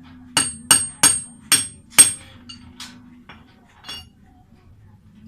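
Hammer striking metal during motorcycle-rickshaw disassembly: five sharp, ringing blows about half a second apart, then a few lighter taps.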